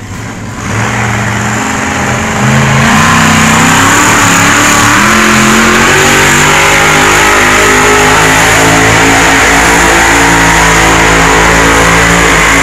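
Competition pulling vehicle's engine revving up in steps, then held at full throttle, very loud and steady.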